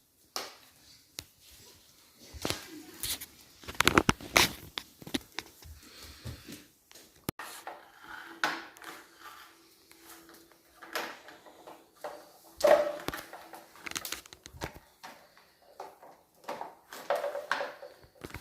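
Plastic toy cleaning-trolley pieces being handled: irregular clatters, knocks and scrapes, with a few short squeaks, the loudest knocks about four seconds in and again past the middle.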